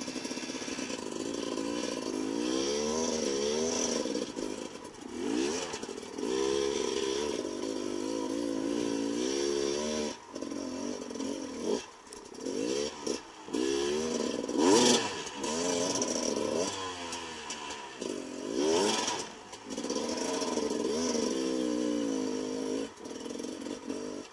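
Beta 300RR single-cylinder two-stroke enduro engine revving up and down in repeated throttle bursts as the bike works its way up a rocky trail, with brief drops where the throttle closes. A couple of sharp knocks stand out, the loudest about fifteen seconds in and another about four seconds later.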